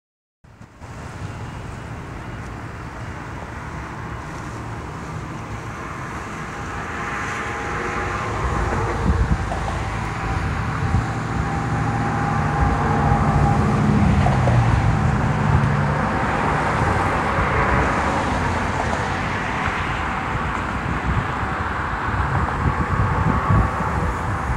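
Steady outdoor engine and traffic rumble with a faint hum that swells through the middle and eases off again; wind buffets the microphone near the end.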